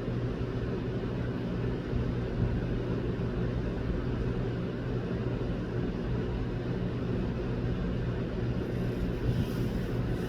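Steady low mechanical hum and rumble, with an even tone near the bottom and no clear changes.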